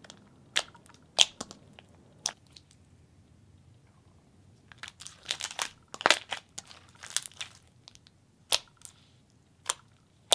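Creamy slime with foam beads being poked and pressed by fingertips, making sharp clicks and crackling pops. There are three single pops in the first few seconds, a dense run of clicks around the middle, and two more toward the end.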